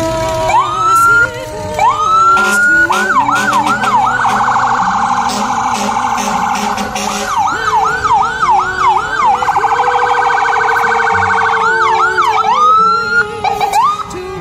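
Electronic emergency-vehicle siren cycling through its patterns: steep rising wind-ups, slow wail sweeps, and stretches of fast yelp, switching back to slow sweeps near the end. Underneath runs a second, lower steady siren tone that slowly falls in pitch.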